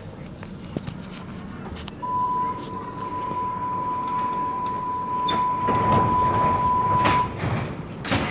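Hamburg U-Bahn DT3-E train: a steady single-pitch warning beep sounds for about five seconds over the car's background rumble, the door-closing signal, followed by two loud knocks as the doors shut.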